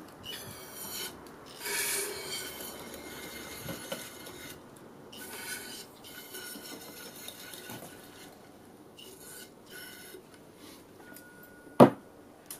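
Aerosol can of brake cleaner hissing in short bursts as it is sprayed into a Honda lawn mower engine's carburetor intake to get a no-start engine to fire; the can is nearly empty. One sharp knock near the end.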